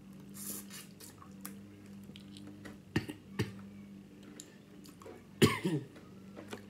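A person eating, with a few soft mouth clicks. A cough and throat-clearing about two-thirds of the way in is the loudest sound, over a steady low background hum.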